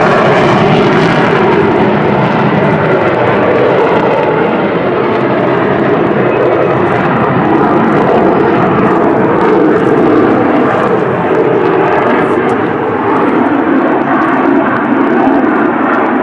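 Avro Vulcan XH558's four Rolls-Royce Olympus turbojets at full power during a spiral climb, a loud, steady jet noise.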